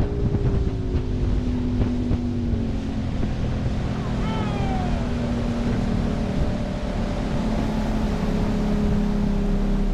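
A 175 hp outboard motor running at cruising speed with the boat planing, its engine note steady apart from a slight dip in pitch in the first few seconds. Wind and the hiss of the hull and wake run underneath it.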